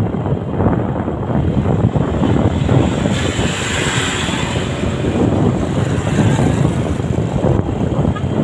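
Wind buffeting the microphone of a moving motorbike, a steady rumble with the bike's road and engine noise beneath it; a higher hiss swells and fades around the middle.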